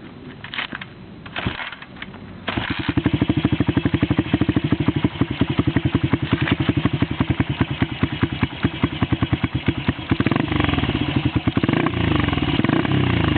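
Daelim VS125 motorcycle engine, a small V-twin, starting about two and a half seconds in after a few clicks, then idling with an even, loud pulse. Near the end it is revved up and down. The owner calls it a terrible sound.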